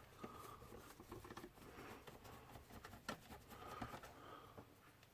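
Near silence with faint scattered clicks and taps, the sharpest about three seconds in: hands working on a desktop PC's case and drive bay.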